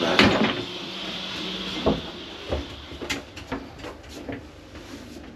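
A few light knocks and clicks, spaced irregularly: a cabin door and its fittings being handled.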